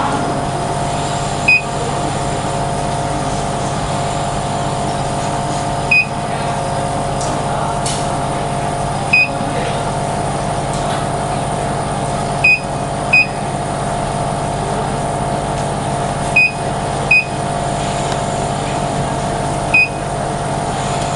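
Steady electrical hum of a laser engraving machine and its fans running, with eight short high electronic beeps at irregular intervals.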